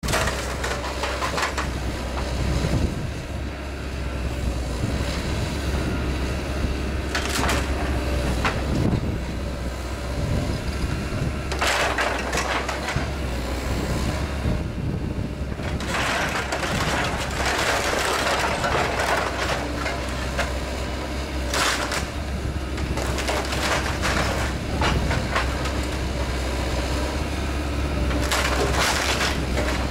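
Hyundai Robex 140LC-9 excavator running steadily while its bucket tears into and crushes a house's timber roof framing. Splintering cracks and crunching come in repeated bursts, with the longest and loudest about halfway through.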